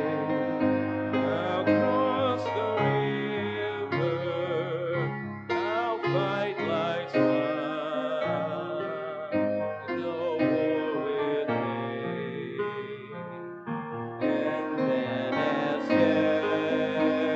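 Hymn music: piano accompaniment under a slow melody line held with vibrato, in phrases with brief breaks.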